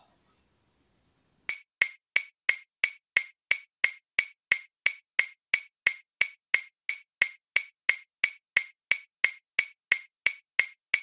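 Stopwatch ticking sound effect: sharp, even ticks, about four a second, starting about a second and a half in.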